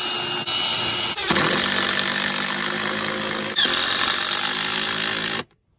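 Cordless drill motor running under load as it is driven at a shallow angle into a 2x4, with a steady pitched whine. It gets louder about a second and a half in and again a little after three and a half seconds, then stops suddenly near the end.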